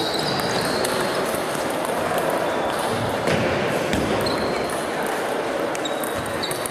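Table tennis balls clicking off bats and tables from several matches at once in a reverberant sports hall, over a steady murmur of voices. A few short, high squeaks come at the start, about four seconds in and near the end.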